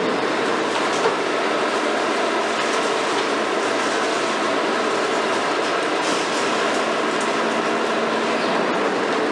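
KMC 400 long-reach demolition excavator, built on a Hitachi 350, working: its diesel engine and hydraulics run at a steady drone under dense, rough noise, with a single short knock about a second in.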